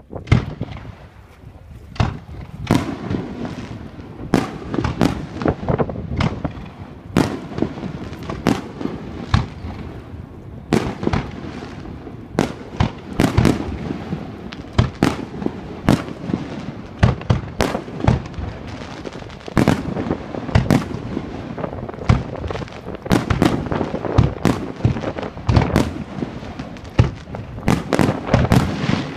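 Aerial fireworks shells bursting in rapid succession, many sharp bangs overlapping with one another and their echoes, as in a finale barrage.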